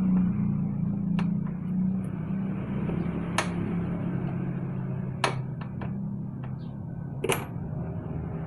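Engine idling steadily, with a few sharp clicks over it.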